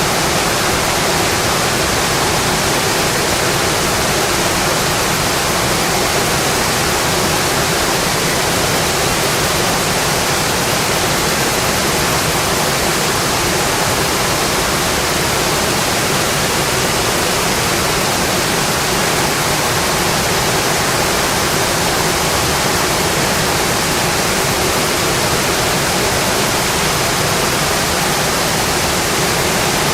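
Steady rainfall: an even, unbroken hiss that holds at one level throughout.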